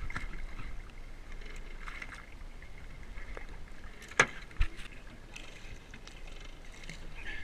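Water sloshing and splashing against an aluminium boat hull as a hooked fish thrashes at the surface beside it. Two sharp knocks about four seconds in.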